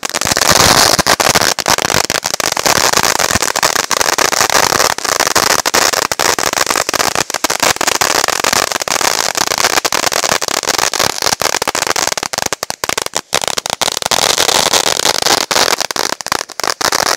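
Ground firework fountain spraying sparks with a loud, dense crackle over a steady hiss, starting suddenly.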